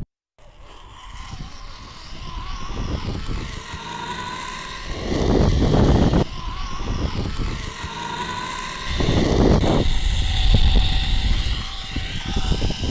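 Zipline trolley wheels whirring along the steel cable during a ride, a thin whine that rises and falls, with wind rushing and buffeting on the microphone.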